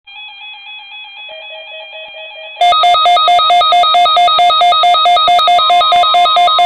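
Weather radios sounding their alert alarms. Quieter electronic tones come first, then a loud, fast beeping alarm starts about two and a half seconds in at about four beeps a second. A steady tone joins near the end. This is the alarm that NOAA weather radio receivers sound when the weekly Emergency Alert System test is broadcast.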